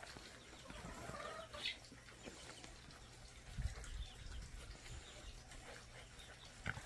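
Pungsan puppies play-fighting: faint whines and small yips amid scuffling, with a low thump about three and a half seconds in and another near the end.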